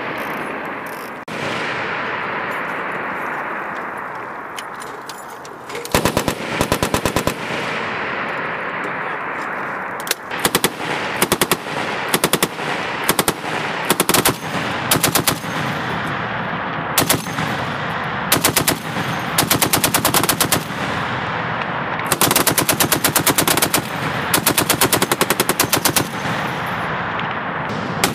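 Belt-fed machine guns, among them an M2 Browning .50 caliber heavy machine gun, firing repeated short bursts of rapid shots. The bursts overlap with other guns on the range and ring on in a continuous echo, and they grow longer in the second half.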